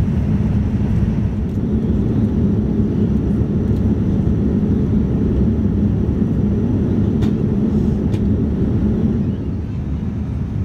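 Boeing 787-9 airliner cabin noise in cruise: a steady low rush of airflow and engines, a little quieter near the end.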